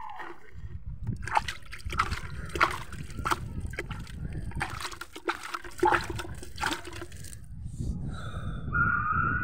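Water being poured by hand onto the soil around a freshly planted sapling, sloshing and splashing in uneven bursts.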